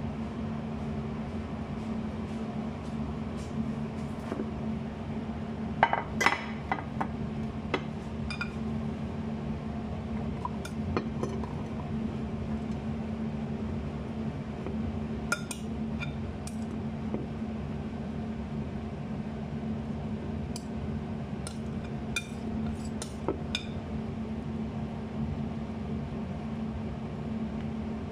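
A spatula scraping and knocking against a glass mixing bowl, with scattered clinks of glass and the loudest cluster about six seconds in. A steady low hum runs underneath.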